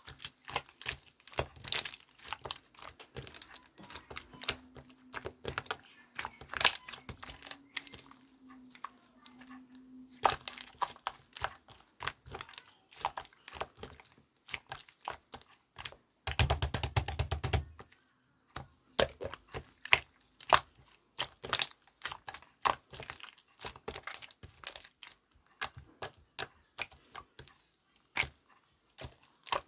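Many irregular sharp clicks and crinkles, like small objects being handled, with a denser rustling burst about sixteen seconds in.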